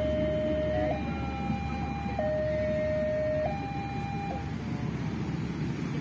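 Railway level-crossing warning alarm sounding a two-tone electronic signal, switching between a lower and a higher note about every second and a quarter, then stopping about four seconds in as the train clears the crossing. A low rumble of traffic and the departing train runs underneath.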